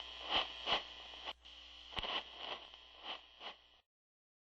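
Radio-like static hiss with soft irregular crackling swells, two or three a second, growing weaker until it cuts off abruptly to silence almost four seconds in: the lo-fi tail of the recording at the very end of the track.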